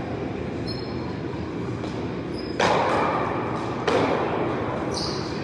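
Two sharp hits of a paddleball, about two and a half and four seconds in, each echoing in a large indoor court, over a steady background rumble.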